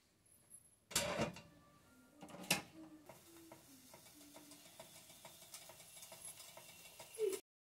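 Stainless steel pot of water set down on an electric coil burner: a metal clunk about a second in and another knock about a second and a half later, then faint ticks and a low hiss.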